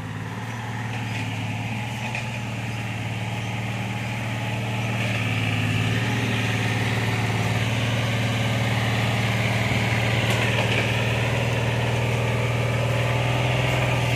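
A heavy engine running steadily with a low, even hum. It grows louder over the first six seconds or so, then holds, wavering slightly in pitch now and then.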